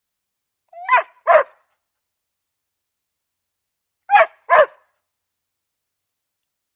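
A dog barking: two quick barks, then another two about three seconds later.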